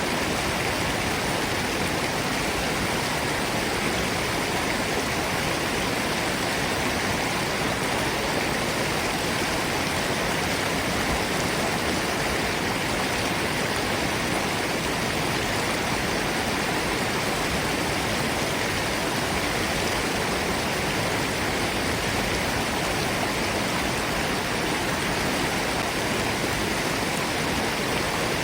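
Forest stream and small waterfall: a steady, unbroken rush of falling and flowing water.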